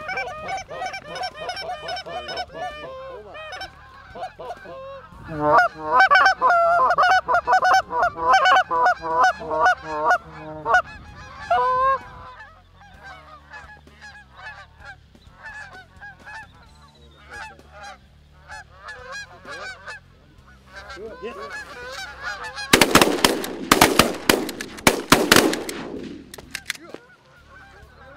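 Canada geese honking as a flock circles low, with a loud stretch of rapid, overlapping honks and clucks for several seconds early on. Near the end, a loud burst of rapid flapping noise lasts about three seconds.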